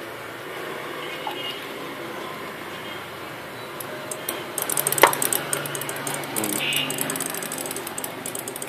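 A steady background hum, then from about halfway a rapid run of dry clicks, with one sharp, loud click just as it starts.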